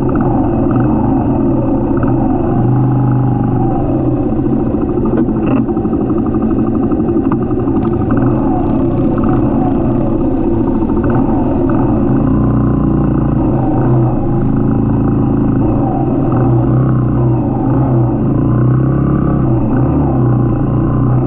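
Classic Suzuki motorcycle engine running steadily under way, its pitch rising and falling as the revs change.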